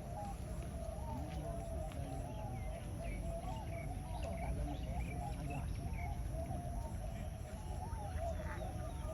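Many zebra doves cooing at once: a dense, unbroken chorus of short, wavering notes overlapping one another, over a steady low background rumble.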